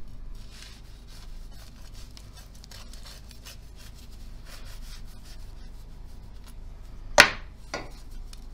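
Kitchen knife cutting through the baked crust of a butter French bread roll, a run of faint scrapes and crackles. Near the end, two sharp cracks, the first much louder, as the roll is pulled apart by hand.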